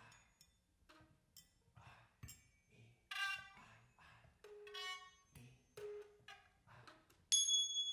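Sparse contemporary chamber music for flute and percussion: short, separate flute notes and percussion sounds, among them pure single tuning-fork tones, with pauses between. A louder, bright high tone comes in near the end.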